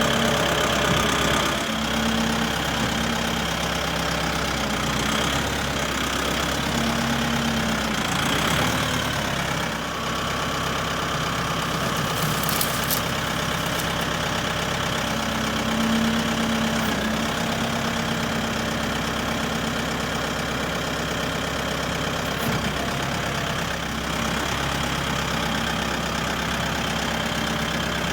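Tractor engine running steadily, its pitch shifting a little about a third of the way in and again around the middle.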